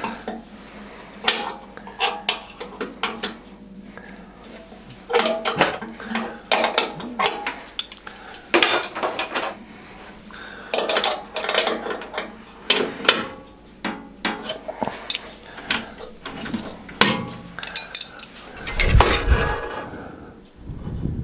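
Metal clicking and clinking in bursts as a spanner turns and locks the table-stop bolt under the bandsaw's heavy tilting table, then a low thump near the end as the table comes back down onto the stop.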